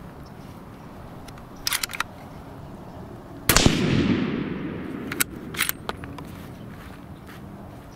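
A single rifle shot from a 30-06 Remington 700 ADL about three and a half seconds in, its report trailing off over about a second and a half. A few light clicks come a couple of seconds before it, and a couple of metallic clacks follow as the bolt is worked and the fired case ejected.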